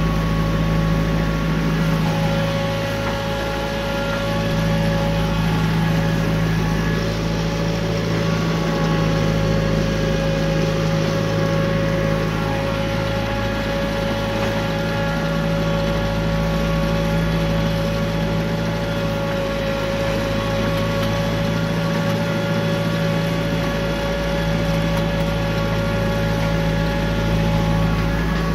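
Compact tractor engine running steadily at a constant speed, a hum with a steady whine on top that holds the same pitch throughout.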